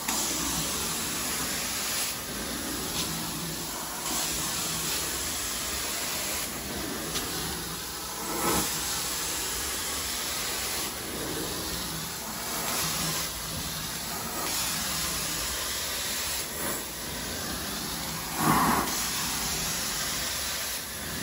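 Carpet extraction wand spraying and sucking water back out of the carpet under strong vacuum: a steady hiss that shifts every couple of seconds with each stroke of the wand, with brief louder surges about 8 and 18 seconds in.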